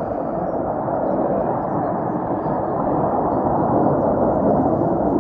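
Distant roar of fighter jets flying high overhead, a steady rumble that eases slightly as they head away.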